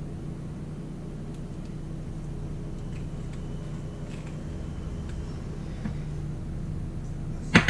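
Steady low background hum of a kitchen, with a few faint light taps from a wasabi packet and small dishes being handled. A sharp click comes right at the end.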